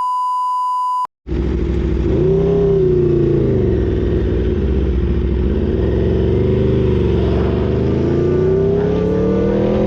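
A steady beep for about a second, a brief dropout, then an Aprilia RSV4's V4 engine running under way. Its revs rise and fall, then climb steadily near the end, on a clutch the rider thinks is slipping.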